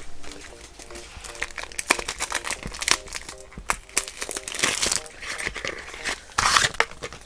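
Toy blind-pack packaging being handled and torn open: crinkling and crackling throughout, with a longer rip about two thirds of the way in and another near the end.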